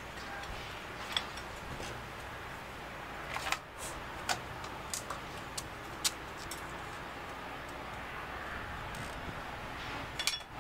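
A handful of short, light metallic clicks and clanks from handling an engine hoist's hydraulic jack handle, bunched in the middle and again near the end, over steady background noise.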